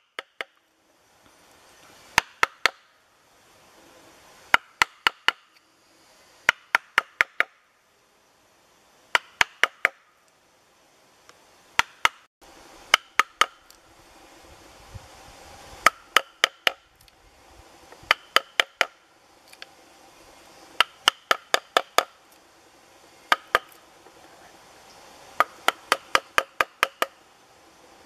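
Steel chisel being tapped into a wooden log to cut out a hole, in quick bursts of three to five sharp knocks about every two seconds.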